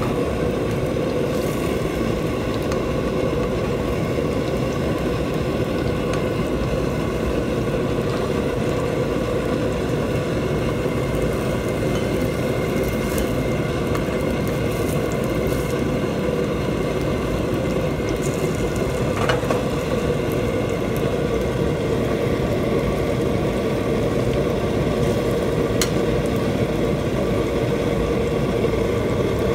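Chicken patties frying in oil in a nonstick pan, over a loud, steady mechanical drone with a hum, such as a kitchen extractor fan or gas burner. A metal spatula clicks against the pan a few times.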